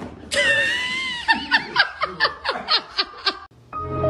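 A high drawn-out squeal, then a person laughing in quick bursts, about four a second, each falling in pitch. Background music starts near the end.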